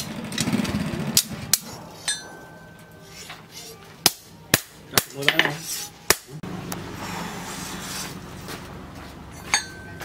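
Hand hammer striking a hot machete blade of disc-plough steel on an anvil: about ten sharp, irregularly spaced strikes, two of them leaving a short metallic ring. A low steady hum comes in about six seconds in.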